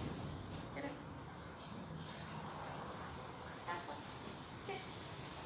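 Crickets chirping: a steady, high-pitched pulsing trill.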